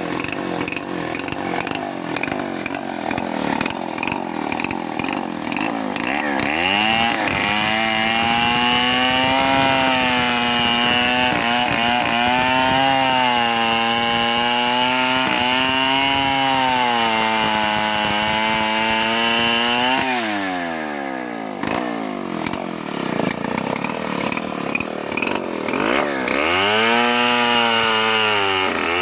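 Homemade chainsaw ripping a mango log lengthwise. Its engine runs rough at first, then climbs to high revs about six seconds in and holds there with a wavering pitch. Around twenty seconds in the throttle drops back sharply, and it revs up again near the end.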